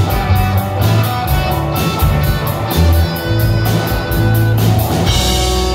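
Live rock band playing: electric guitars, electric bass and a drum kit, the cymbals keeping a steady fast beat over strong bass notes. About five seconds in the drumming stops and the band holds a final chord.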